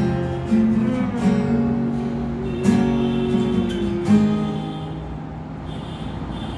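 Tayste TS-35 acoustic guitar strummed in chords, a handful of strokes, the last about four seconds in left to ring out and slowly fade.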